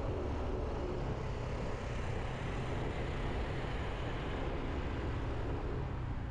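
Motorbike running steadily on the move, its engine drone mixed with wind and road rumble at an even level.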